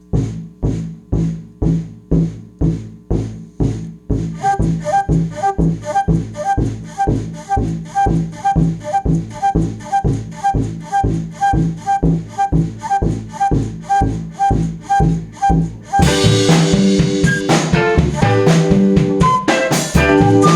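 Background music with a steady drum beat of about two beats a second. About four seconds in, a repeating higher note joins the beat, and about sixteen seconds in the full band comes in, louder.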